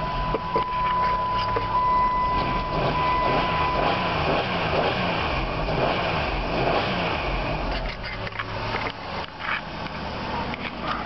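Minivan engine on a cold start in the snow, just caught and running while the gas pedal is worked, its note rising and falling. A steady high electronic warning tone from the dash sounds over it, then stops about four seconds in.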